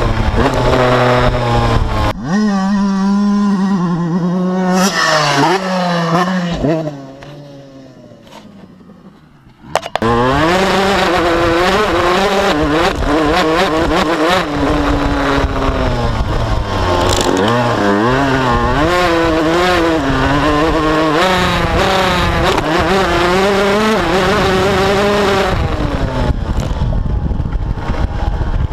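Honda CR125 motocross bike's single-cylinder two-stroke engine revving hard, its pitch sweeping up and down again and again, heard through a GoPro housing. About a quarter of the way in the engine sound falls away for a few seconds, then cuts back in suddenly at full loudness.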